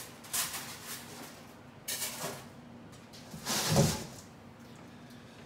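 Cardboard and foam packing being pulled away and handled: three scraping, rustling bursts, the loudest about three and a half seconds in with a dull thump.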